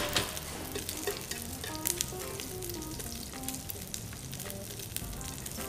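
Slices of already-cooked octopus and onion sizzling in hot oil in a pan over a high flame, with scattered sharp ticks and pops as the pieces are seared and turned.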